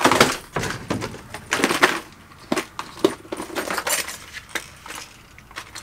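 Hard plastic fishing lures clattering and clinking inside clear plastic tackle boxes as the boxes are handled and opened, in a string of short irregular rattles.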